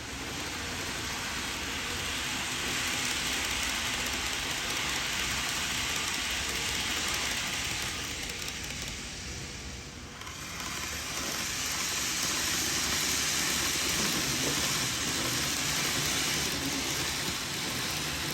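N-gauge model trains running on the layout: a steady hissing rattle of small wheels on track that swells, fades briefly about halfway through, and swells again.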